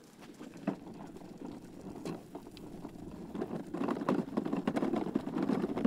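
Irregular footsteps and light knocks from people walking while carrying a large model aircraft by hand, growing louder in the second half.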